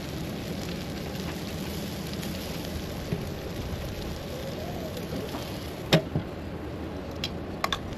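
Food sizzling on a barbecue grill: a steady hiss, with a sharp clack about six seconds in and a few lighter clicks near the end.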